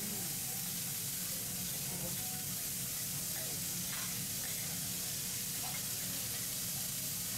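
Food sizzling on a hot teppanyaki griddle, a steady hiss.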